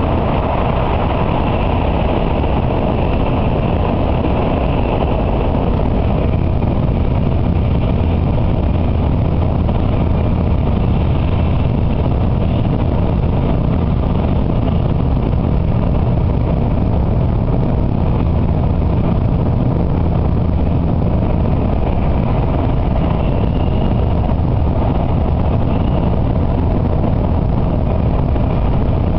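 Cabin noise of an N700A Shinkansen running at speed: a steady low rumble and rush of wheels and air. A few seconds in, the rush thins slightly as the train leaves a tunnel for open track.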